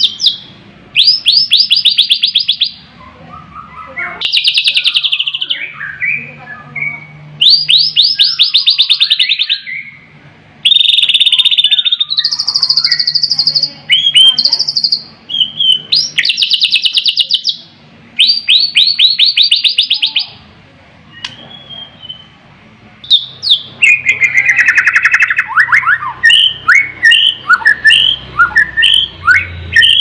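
White-rumped shama singing loudly in a varied song. Bursts of rapid repeated high notes, each about a second long, recur many times between quieter varied whistles, and near the end comes a run of quick notes that slide downward.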